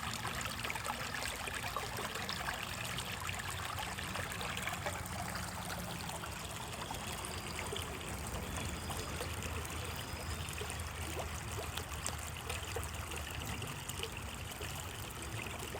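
A small stream trickling and running steadily.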